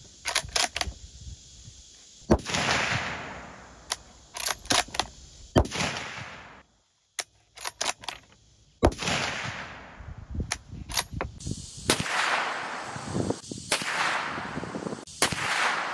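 Several rifle shots from a Ruger American Ranch bolt-action rifle chambered in .350 Legend. Each shot trails off in an echo lasting about a second.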